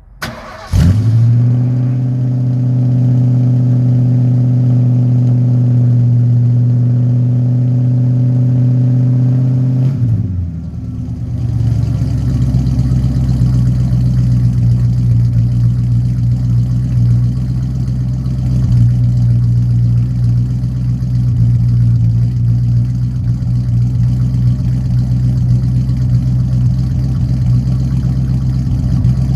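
1976 Ford Torino's 351 Windsor V8 starting after a brief crank and running through true dual exhaust with Paradox Signature Series mufflers. It holds a high, steady fast idle for about nine seconds, then drops to a lower, lumpier idle with a deep rumble.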